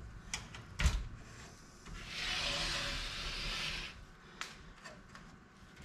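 Power-supply cable being handled and pulled through a computer case's cable opening: a sharp knock about a second in, then a rubbing scrape lasting about two seconds, and a few light clicks.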